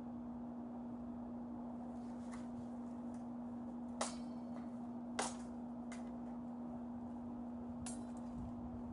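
Weapon blows in a full-contact armoured sword fight: two sharp knocks about a second apart, the loudest sounds, with a few fainter knocks around them, over a steady low hum.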